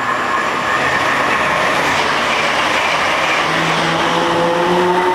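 First Capital Connect electric multiple unit pulling out of the platform, its traction motors whining and slowly rising in pitch as it gathers speed, over a steady noise of wheels on rail.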